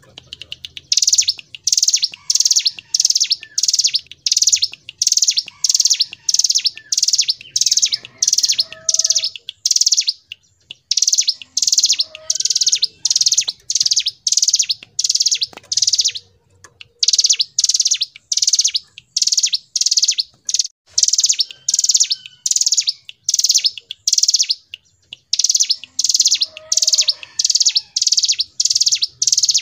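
Ciblek gunung, a mountain prinia, singing long runs of short, high, rapidly repeated notes, about three a second, with brief pauses between runs.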